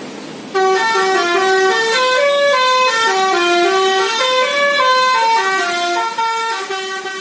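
Dump truck's musical horn playing a tune: a quick run of short notes stepping up and down in pitch. It starts about half a second in and fades near the end.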